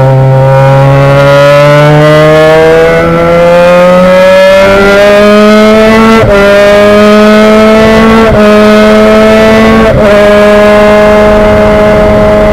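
Race car engine heard from inside the cockpit, its revs climbing steadily for about six seconds, then holding high, broken by three brief cuts about two seconds apart.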